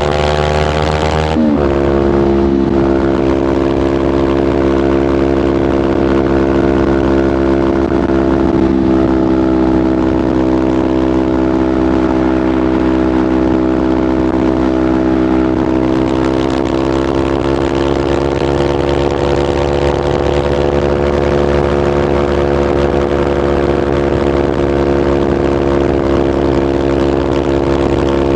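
Kawasaki Ninja 500 parallel-twin running through a LeoVince GP Corsa Evo slip-on exhaust. The engine note drops sharply about a second in, then holds steady at an even pitch, rising slightly past the middle.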